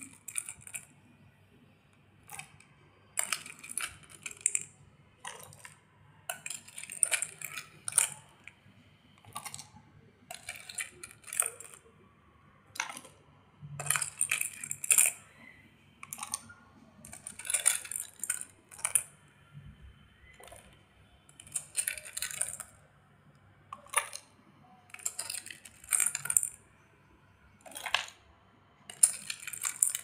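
Beads and small gems clattering as a spoon scoops them from a bowl and tips them into the cells of silicone push-pop fidget toys: short bursts of rattling clicks every second or two, with quiet gaps between.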